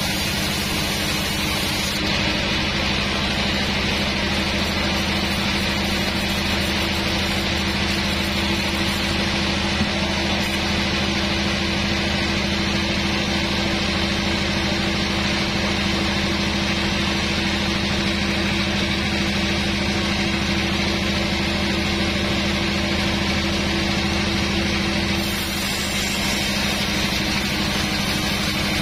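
Sawmill band saw running with a steady hum, its blade sawing lengthwise through a hard old teak log.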